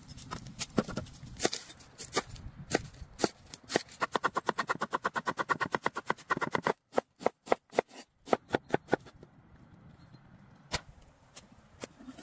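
Large knife slicing through onions onto a wooden cutting board: sharp chopping strikes, with a fast even run of about seven cuts a second in the middle, then slower, sparser cuts.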